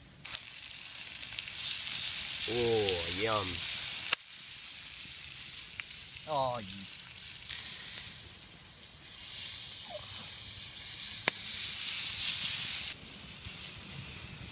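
Tilapia fillets sizzling in garlic butter on a hot steel plate over a campfire. The sizzle starts suddenly just after the start, eases about four seconds in and drops near the end, with two sharp ticks.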